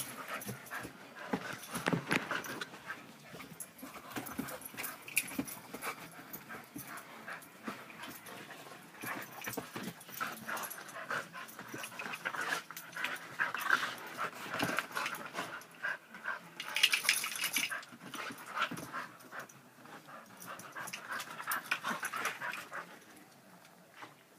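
Two wheaten terriers play-fighting: dogs panting and scuffling in irregular bursts, with one brief louder, hissier burst partway through.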